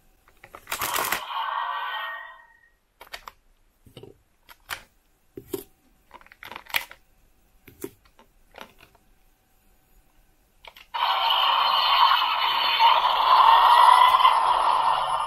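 Bandai DX Dark Z Riser toy playing an electronic sound effect through its small built-in speaker, then a string of sharp plastic clicks and taps as the toy's parts are worked. About eleven seconds in, a longer, louder electronic sound effect starts with a low hum under it and runs to the end.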